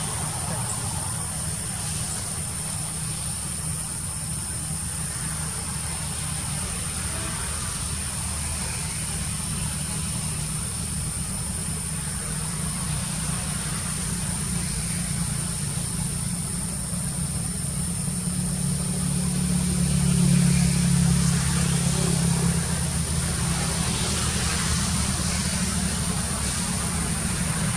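A steady, low engine hum like a motor idling, growing louder for a few seconds about two-thirds of the way in, with a constant high-pitched whine above it.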